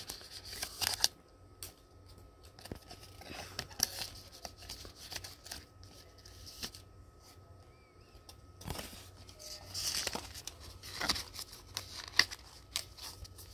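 Trading cards being slid into the pockets of clear plastic binder pages: irregular crinkling and scraping of the plastic sheets, with scattered light clicks.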